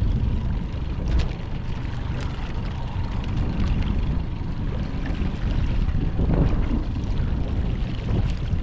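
Wind buffeting the microphone in a steady low rumble, with a few faint clicks.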